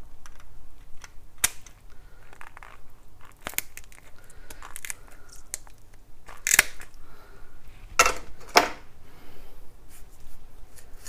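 Knife cutting through the skin and tendon at a plucked chicken's leg joint as the foot is bent off: crackling and tearing, with a few sharp snaps, the loudest about six and a half and eight seconds in.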